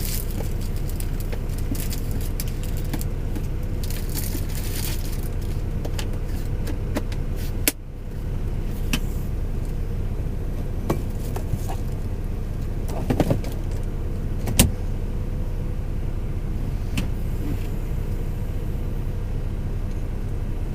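A steady low mechanical hum inside a truck cab, with scattered clicks and light clatter of things being handled; the hum dips sharply just under eight seconds in and comes straight back.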